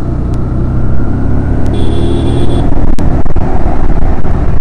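TVS Apache 160 motorcycle riding at speed in the rain, its single-cylinder engine running steadily under loud rumbling wind on the microphone. A short high tone lasts under a second about two seconds in.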